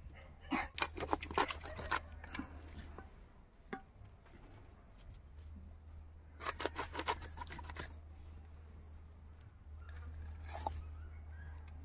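A heavy iron knife blade scraping the scales and skin off a snake fish: quick runs of short scraping strokes, one run about half a second in and another about six and a half seconds in, with a few more strokes near the end.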